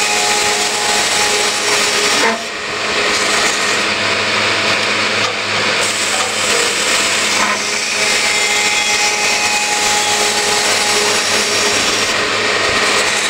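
Scotchman CPO 315 HFA-CNC automatic cold saw with a 12.5-inch, 160-tooth blade at about 150 RPM, running an automatic cycle through thin-wall mild steel tubing. The sound of the cut is loud and steady, with a brief dip a couple of seconds in and smaller ones later as the saw moves between pieces.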